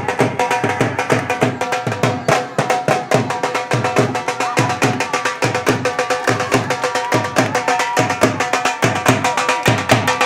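Dhol drum beaten in a fast, even bhangra rhythm, with steady held notes above the drumming.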